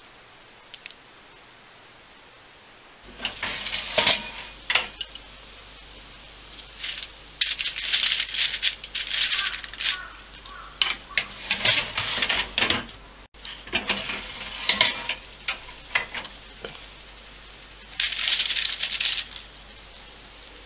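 Aluminium foil crinkling and rustling as it is handled on a baking tray, in irregular crackly bursts that start about three seconds in and keep coming until near the end.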